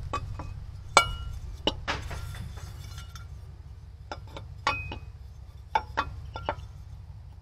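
A metal fan pulley clinking and tapping against the engine's pulley hub and nearby metal parts as it is seated by hand. There are about eight irregular sharp clinks, a few with a short metallic ring, the loudest about a second in and near five seconds.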